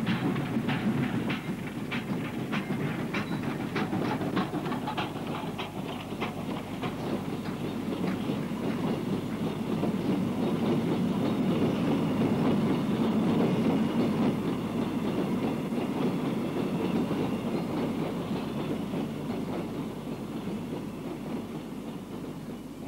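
Coal hopper wagons rolling past with a regular clickety-clack of wheels over rail joints, the clicks fading out about six seconds in. Then a steady rumble with a faint high whine as a South Maitland Railways 10 class steam tank engine approaches, swelling and then slowly easing off, on old super 8 sound film.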